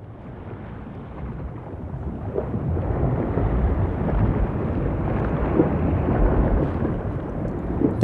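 Low rumbling wash of noise that fades in and swells over the first three seconds, then holds steady.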